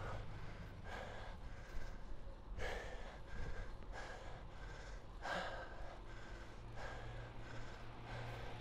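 A cyclist breathing hard close to the microphone, a heavy breath about every second and a half, the strongest about three and five seconds in: out of breath from pedalling a fixed gear bike.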